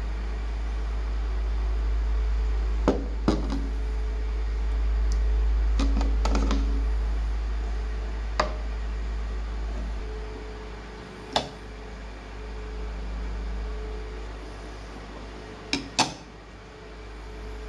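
Metal hard-drive casings clicking and knocking as they are handled, laid on one another and set down on a plastic kitchen scale. The sharp knocks are spread out, with a close pair near the end, over a steady low hum.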